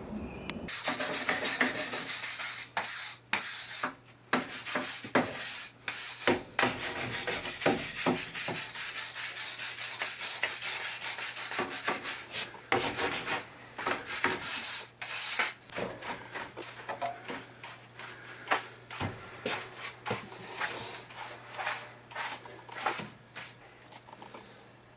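Hand scraping and rubbing on a concrete foundation wall: a continuous run of irregular, gritty strokes with sharp scratches, growing sparser near the end. A faint steady low hum runs underneath.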